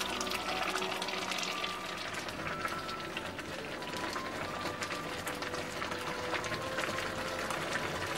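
Pot of water at a rolling boil with glass noodles in it, bubbling and crackling steadily.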